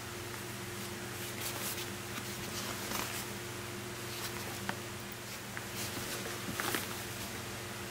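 Light rustling and brief clicks of a fabric backpack being handled, over a steady low hum.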